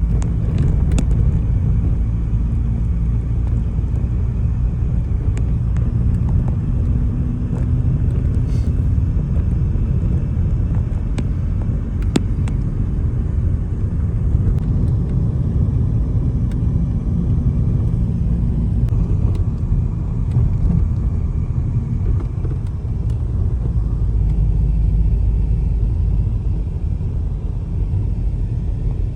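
Steady low rumble of a car on the move, road and engine noise, with a few faint clicks.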